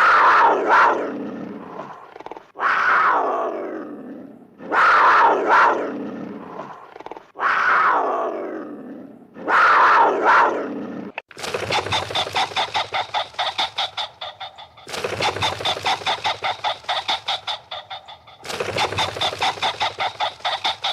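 Animal calls. First come five loud calls, about two seconds each, that start high and fall in pitch. Then come three stretches of fast, rapid pulsing chatter with a thin high tone running through it.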